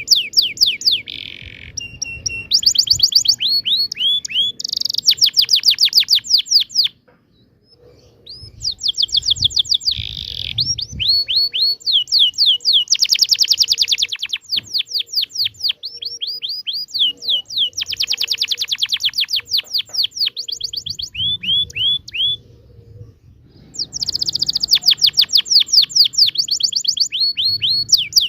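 Domestic canary singing a long, loud song of rapid rolling trills and chirps. It moves through strings of quick falling notes, with short pauses about seven seconds in and again near twenty-three seconds.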